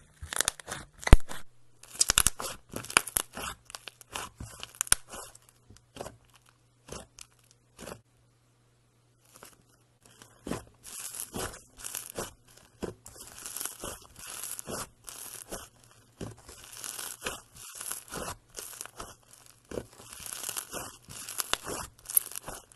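Slime being squeezed and worked by hand, making dense crackling and crunching clicks, with a sparser lull of scattered pops in the middle before the crackling picks up again.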